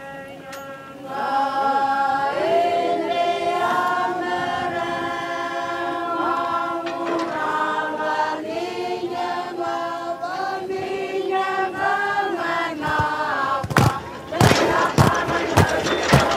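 Choir singing: several voices hold long notes in harmony and slide between pitches. Near the end, sharp percussive beats come in.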